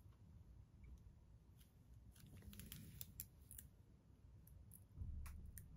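Near silence with a few faint, scattered ticks from fingertips and nails moving over the plastic film covering a diamond-painting canvas, and a soft low bump about five seconds in.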